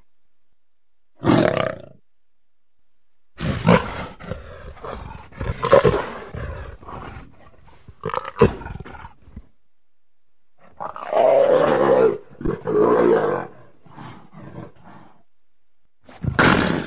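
Leopard snarling and growling in a run of separate rough bursts, each a second or two long, with short silences between them; the longest comes about eleven seconds in.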